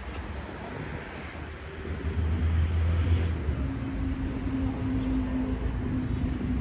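Street traffic: a motor vehicle's engine rumble swells about two seconds in, then a steady engine hum holds until near the end.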